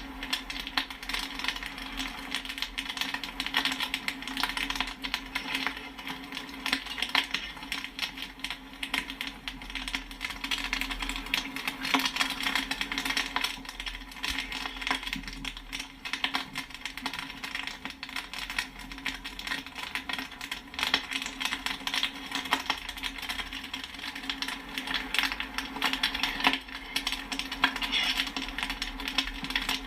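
Popcorn kernels popping in a dense, continuous stream of sharp pops and pings, many a second, with a steady hum underneath.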